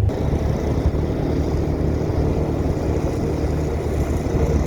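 A small engine running steadily at an even speed, a low hum that holds constant without revving.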